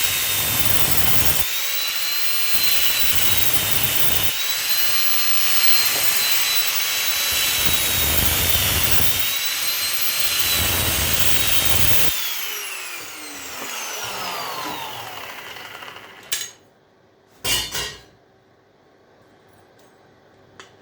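Electric power tool running and cutting into copper pipe to take the brass fittings off, its motor whining steadily with the cut biting in and easing off. About twelve seconds in it is switched off and the whine falls away over a few seconds. Then there are two short metallic clinks.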